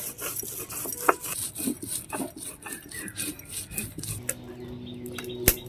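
Stone roller grinding white mustard seeds and salt on a flat sil grinding stone: a gritty rubbing and scraping, stroke after stroke. About four seconds in the grinding stops and a steady low droning tone comes in, with one sharp click near the end.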